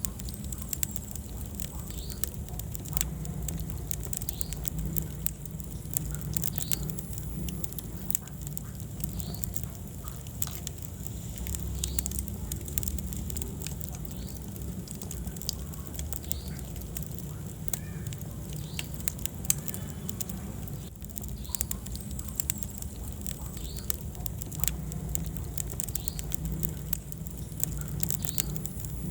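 Wood fire burning in a fireplace, crackling with frequent sharp irregular pops over a steady low rumble of flame.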